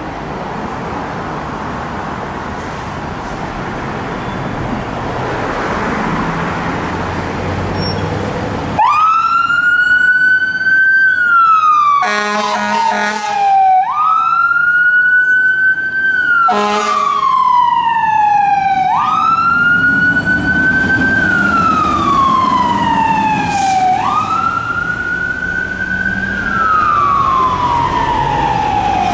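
A fire engine's diesel engine runs as the truck pulls out. About nine seconds in, its siren starts wailing, jumping up in pitch and then sliding slowly down, about every five seconds. Short horn blasts cut in around twelve seconds in.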